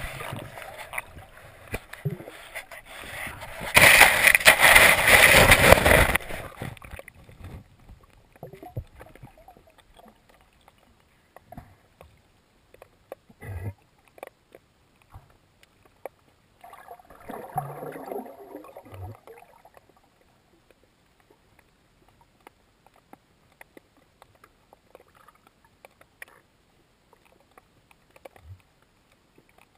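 Water sloshing and rushing around an underwater camera near the surface, loudest for about two seconds starting about four seconds in. After that it is mostly quiet underwater, with scattered faint clicks and a short, weaker rush of water about two thirds of the way through.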